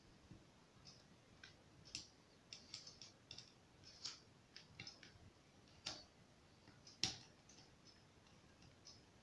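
Faint, scattered small metallic clicks and taps of a screwdriver and steel black-powder revolver parts being handled during disassembly, the sharpest click about seven seconds in.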